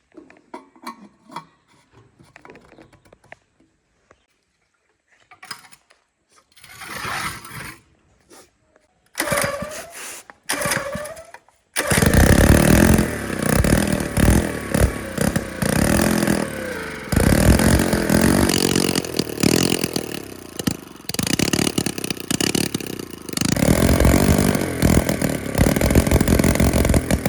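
Small gasoline engine of a restored water pump starting up: after a few short tries it catches about twelve seconds in and runs, its speed rising and falling.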